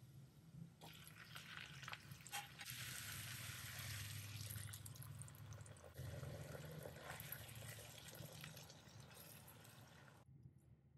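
Sizzling in a hot nonstick frying pan as bok choy goes onto sautéed garlic, with a few light knocks as the stalks drop in. The sizzling gets louder with the oyster-sauce mixture in the pan, over a low steady hum, and cuts off suddenly shortly before the end.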